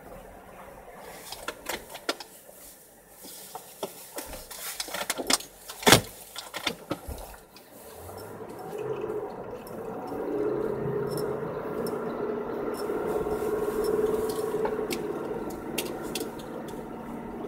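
Car driving onto a snow-covered lane. In the first half come scattered clicks and knocks, one much louder about six seconds in. From about eight seconds the engine and tyre noise rise steadily as the car picks up speed over the snow.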